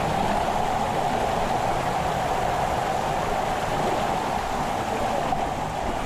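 Stream water rushing steadily over rocks.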